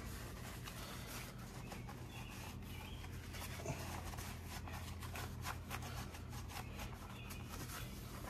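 Faint rubbing and small scuffing clicks of a hand and shop rag wiping gear lube off an outboard's lower unit, over a low steady hum.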